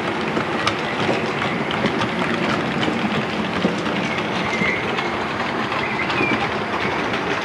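A train of coaches running past: a steady rolling rumble with occasional clicks from the wheels.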